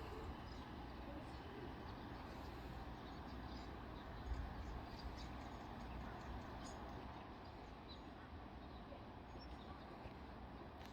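Faint outdoor background: a low steady rumble with a few scattered short, high chirps.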